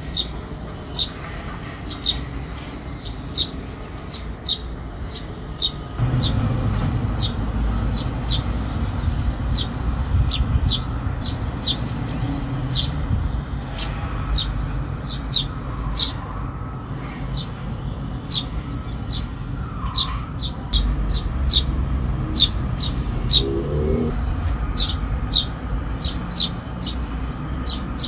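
Eurasian tree sparrows chirping: a steady run of short, sharp, high chirps, about two a second. These are the begging calls of fledglings asking to be fed.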